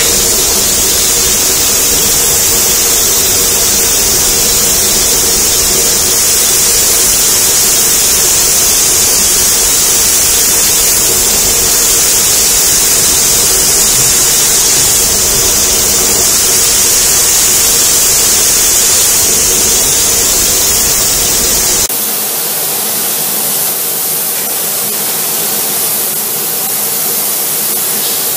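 Paint spray gun on an industrial painting robot's arm hissing steadily as it sprays paint onto an electric motor, with a faint steady hum underneath. About three quarters of the way through the sound changes abruptly, becoming thinner and losing its low rumble.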